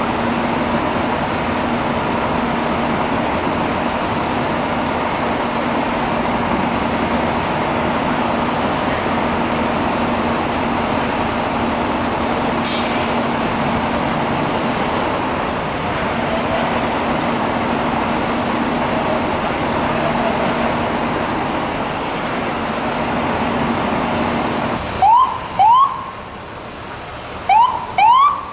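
A steady mechanical drone of fire apparatus engines running at a fire scene, with a short hiss about halfway through. The drone cuts off abruptly near the end, and several short rising emergency-vehicle siren chirps follow from FDNY vehicles.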